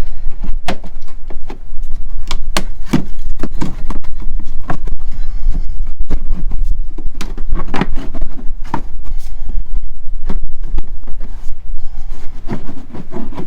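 Irregular knocks, scrapes and rustling of a car's trunk carpet and liner being pulled out of the boot, over a steady low rumble.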